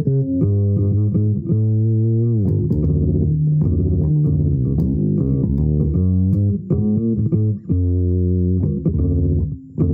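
Solo electric bass guitar playing an improvised line of low notes, some sliding in pitch, with a short pause near the end.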